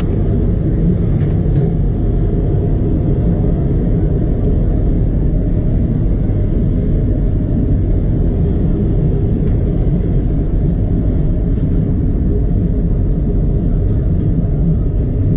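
Diesel truck engine idling with a steady low rumble.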